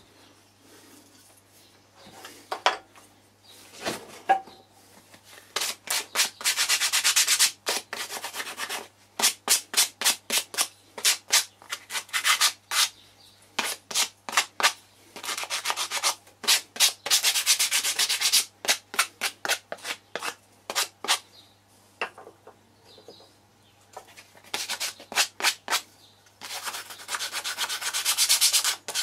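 Small sawn wooden pieces being sanded by hand: quick back-and-forth rubbing strokes, about three or four a second, in bursts with short pauses, after a few light knocks near the start.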